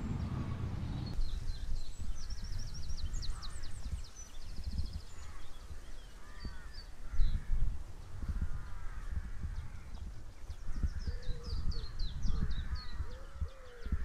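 Wild birds singing and calling: quick high chirps and trills come and go, with lower, harsher calls at intervals between them, over a low uneven rumble.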